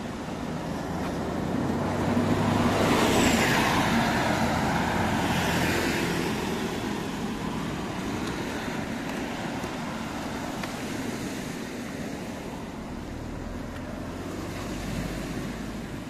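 Road traffic: a motor vehicle passes, growing louder over about a second and fading away over the next few seconds, over a steady background of traffic noise.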